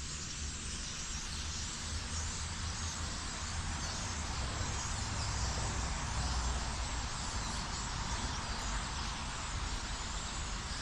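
A large flock of birds calling all at once, a steady dense din of overlapping chatter, with a low rumble underneath.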